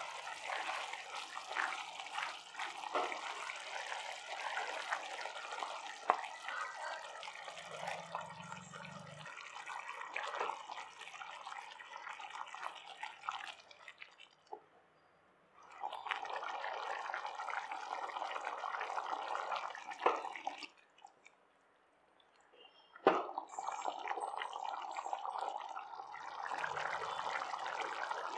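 Thick curry gravy bubbling and sizzling in a pan, with many small pops, while a wooden spatula stirs and scrapes through it. The sound drops out twice briefly, and one sharp knock stands out about two-thirds of the way through.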